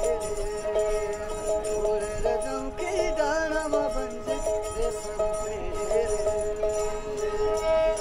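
Background music: a wavering melody over held drone notes, with light rhythmic percussion.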